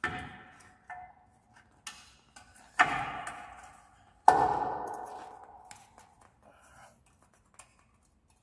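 Metal parts of a scooter's kickstarter mechanism knocking together as they are fitted: about five sharp metallic knocks that ring, the loudest about four seconds in, its ring dying away over about two seconds, followed by a few small clicks.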